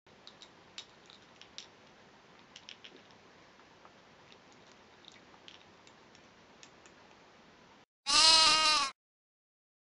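A cat chewing dry kibble from a bowl: faint, scattered crunching clicks. About eight seconds in, a loud, wavering pitched sound cuts in for about a second.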